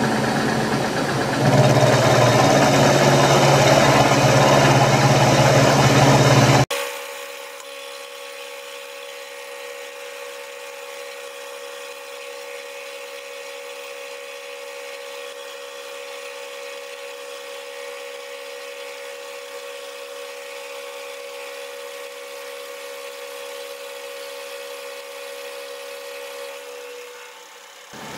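Milling machine spindle running with an end mill taking a light cut along the edge of a metal plate as the table traverses. For about the first seven seconds the cutting noise is loud; it then cuts off abruptly to a quieter, steady machine whine that eases off near the end.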